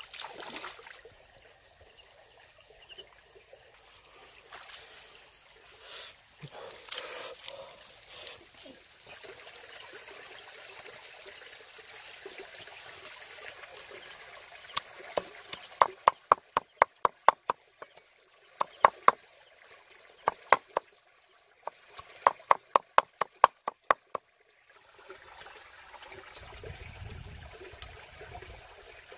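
Water trickling and splashing as hands rinse in a shallow stream, then a knife chopping fish flesh on a wooden chopping board: runs of sharp knocks at about three to four a second, broken by a short pause.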